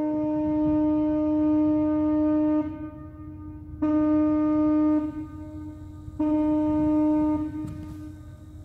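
A horn blown three times on one steady pitch: a long blast of about three and a half seconds, then two shorter blasts of about a second each.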